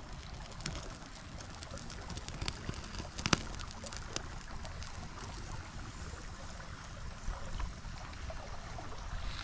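Forest stream running steadily, with scattered small clicks and one sharp click about three seconds in.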